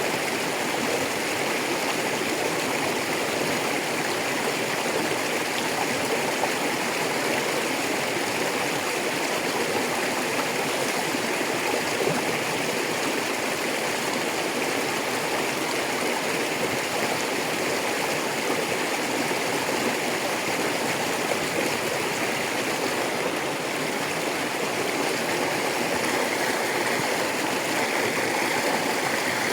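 River water flowing over rocks: a steady rushing with no breaks.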